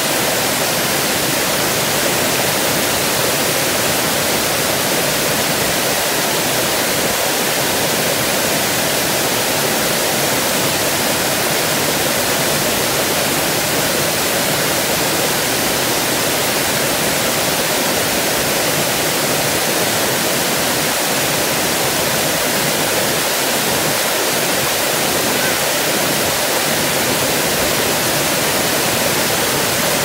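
Waterfall: falling water making a loud, steady, unbroken rush.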